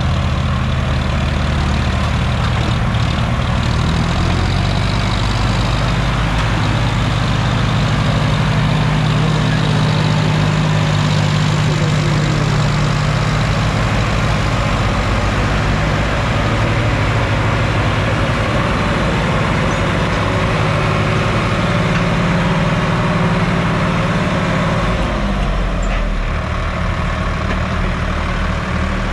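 Several diesel tractor engines, the stuck Sonalika DI 750's among them, running hard under heavy load as they strain to free a loaded trailer from mud. The engine note holds steady, then drops near the end.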